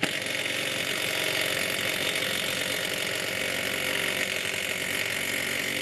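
A power tool running steadily as it tightens the big lower mounting bolt of a new rear strut, an even mechanical whirr with a fast rattling texture.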